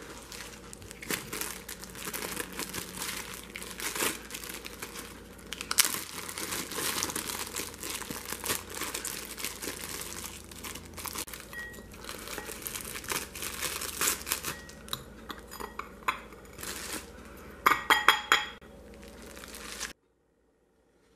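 Plastic zip-top bag of frozen yogurt starter crinkling and rustling as it is handled and opened by hand, with a quick run of sharper, louder clicks near the end.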